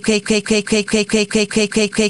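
A short pitched sound snippet looped over and over in a rapid, perfectly even stutter, about five times a second.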